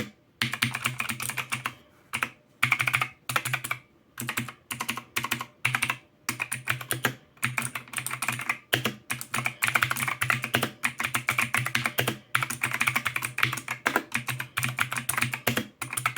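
Typing on a 60% mechanical keyboard with clicky Outemu Blue switches: fast runs of sharp key clicks in bursts with brief pauses between them.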